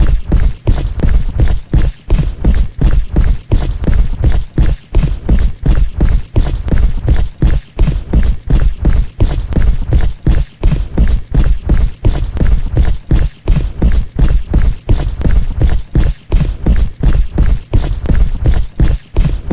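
Heavy footsteps, a steady walking rhythm of deep thuds about two steps a second.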